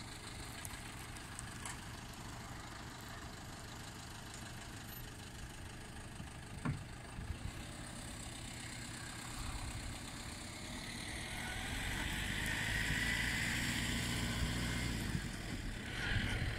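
A machine engine running steadily, with a low drone that grows louder in the second half. A single click comes partway through.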